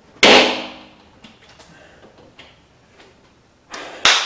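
A sharp metallic snap with a short ringing tail as the new gas lift support strut's end fitting goes onto its ball stud on the rear glass hatch, with a few faint clicks after it. Another sharp knock comes near the end.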